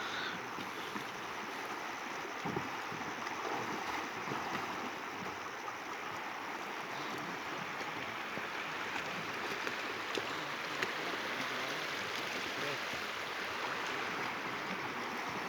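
Steady rushing of river water around a boat, with a few brief knocks.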